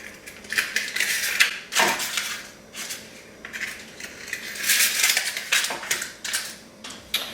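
Irregular scraping, crinkling and clinking of baking things being handled: paper muffin liners and a metal muffin pan or mixing bowl and spoon.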